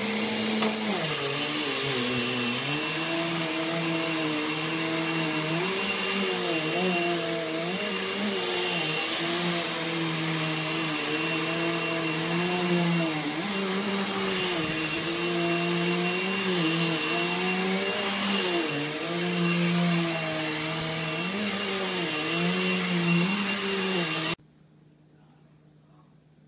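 Vacuum cleaner running over carpet: a loud, steady rush of air with a motor hum that dips and rises in pitch. It is switched off near the end and cuts out abruptly.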